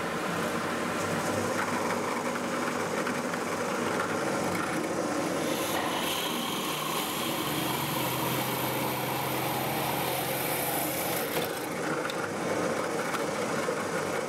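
Power drills running and cutting into wood and laminate board: a continuous mix of motor whine and cutting noise, with a steadier motor hum through the middle stretch.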